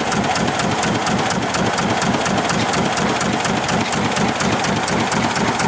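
Volvo Penta MD1B single-cylinder diesel inboard running steadily at low speed, with a regular beat of about six firing knocks a second.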